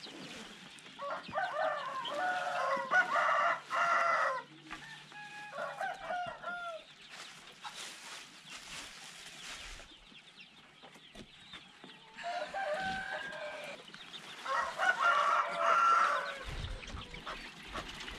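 Rooster crowing twice, once about a second in and again past the middle, with quieter chicken calls between the crows.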